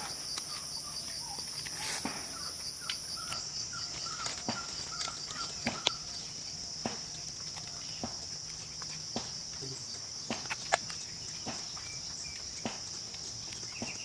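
A steady, high-pitched insect chorus, with a second, higher buzz that stops about three seconds in. Scattered sharp clicks and snaps run throughout, and a few short bird chirps come in the first half.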